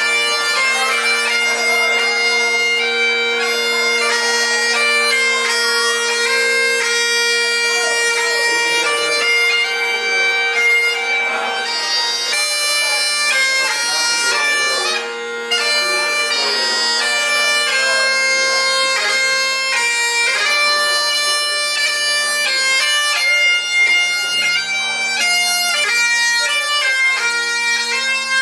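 Bagpipes playing a tune over their steady drones, with a short break in the melody about halfway through.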